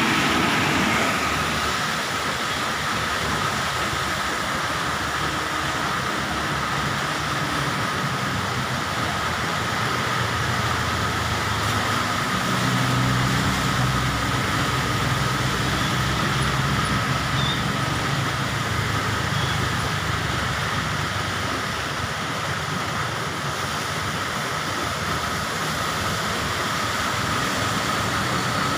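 Heavy rain falling, a steady even hiss, with a low vehicle rumble passing through the middle.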